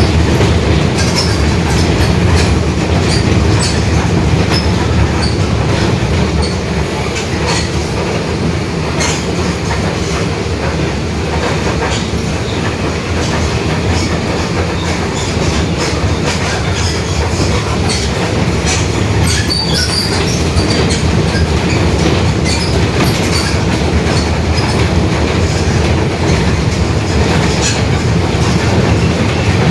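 Mercedes-Benz OF-1721 BlueTec 5 city bus under way: a steady diesel and drivetrain rumble with many small rattles and clicks, and the growling differential. It eases off slightly for a few seconds near the start.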